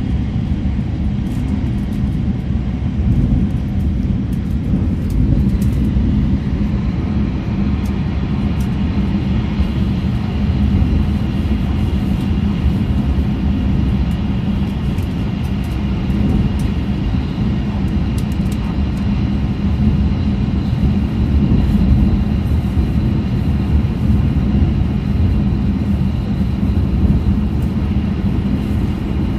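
E6 series Shinkansen running at about 318 km/h, heard from inside the passenger cabin: a steady, dense low rumble of wheels, track and rushing air. A faint high whine joins about seven seconds in.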